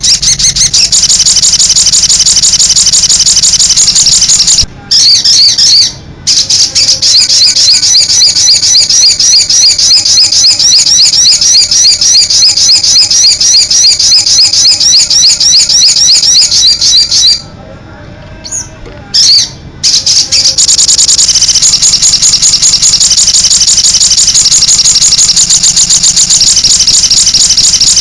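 Sogon bird in full, continuous song: loud, rapid, high-pitched phrases repeated over and over. It breaks off briefly twice, about five and six seconds in, and stops for about three seconds past the middle before starting again.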